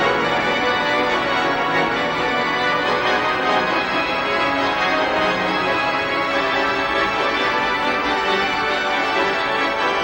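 Organ music playing held chords, steady throughout.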